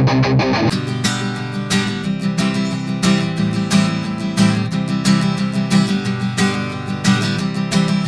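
Electric guitar through an amp for under a second, then a steel-string acoustic guitar strummed in a steady rhythm of chords. Both are picked up by a Blue Bluebird SL condenser microphone.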